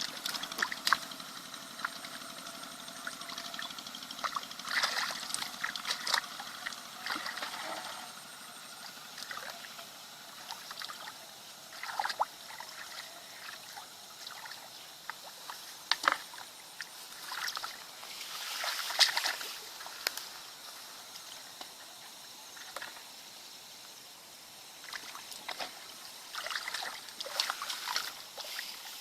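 Water trickling and splashing in irregular small bursts, with scattered clicks and knocks.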